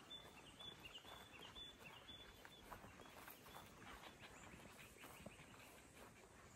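Near silence: faint outdoor quiet, with a bird giving a string of short, high chirps in the first couple of seconds.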